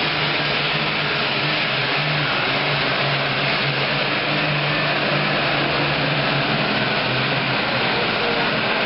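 Super Farm class pulling tractor's turbocharged diesel engine running hard at a steady high pitch, a dense rushing noise over a level engine tone, during a pull.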